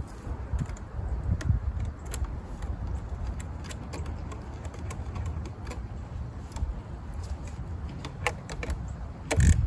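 Irregular light metallic clicks and clinks of a 10 mm wrench working a car battery's terminal clamp, over a steady low rumble, with a louder knock just before the end.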